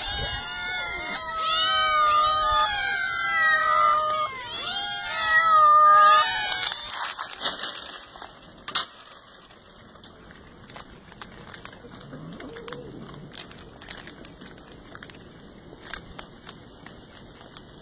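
Many cats meowing over one another, begging to be fed; the meowing stops about six and a half seconds in. After that come faint scattered clicks and crunching as the cats eat dry kibble.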